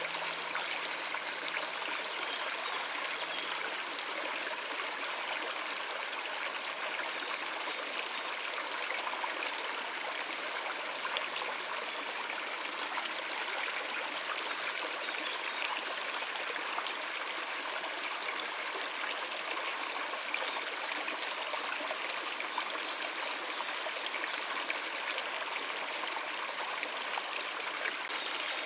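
Stream water running and trickling over rocks, a steady even rush. A bird chirps faintly a few times about two-thirds of the way in.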